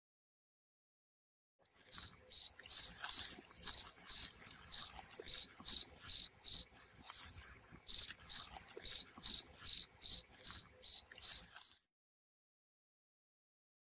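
Fall field cricket (Gryllus pennsylvanicus) chirping: a regular series of short, high chirps, about two or three a second, starting about two seconds in, with a brief break midway.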